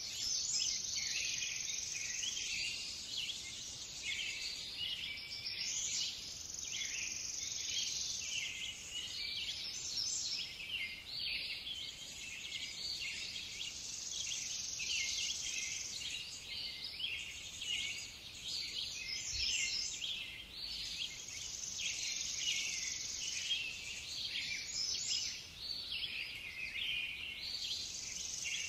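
Outdoor ambience of a dense, high-pitched chirping chorus of insects and birds, swelling and easing every few seconds.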